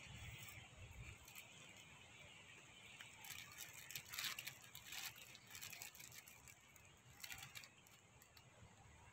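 Near silence: faint open-air ambience with a few faint high clicks, clustered about three to five seconds in and again a little after seven seconds.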